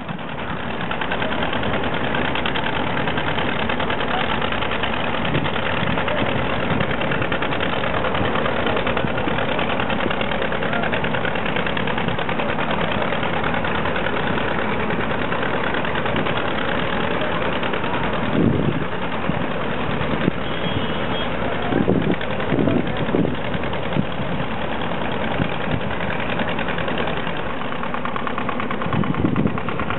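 Diesel engines of motorised river barges chugging steadily with a rapid knocking beat.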